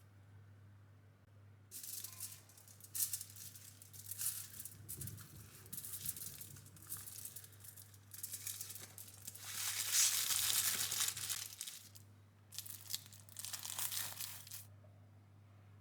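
Packaging crinkling and rustling in irregular bursts as it is handled and torn open, loudest about two-thirds of the way through, over a steady low hum.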